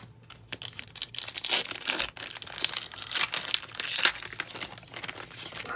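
A trading card pack's wrapper being torn open and crinkled in the hands: a dense run of crackling crinkles.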